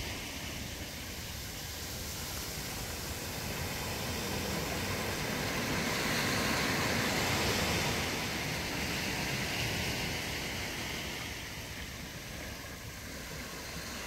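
Shallow surf washing up over wet sand at the water's edge, a steady hiss of swash and foam that swells a little past the middle and eases off again.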